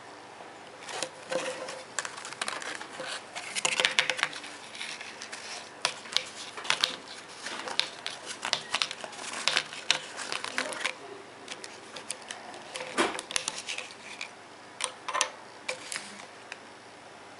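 Hands handling small plastic items up close: irregular clicks, taps and crinkling in clusters, with short pauses between them.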